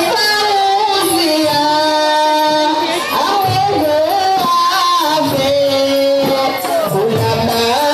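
A woman singing a traditional Comorian tari wedding song into a microphone, amplified, in long held notes that glide from pitch to pitch.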